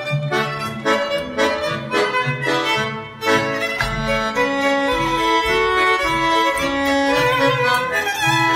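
Instrumental dance music with a steady pulsing beat: a melody line over repeated low notes.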